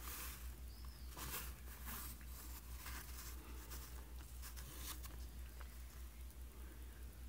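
Swivel knife blade drawing cuts through damp, cased leather: short scratchy strokes about once a second, over a steady low hum.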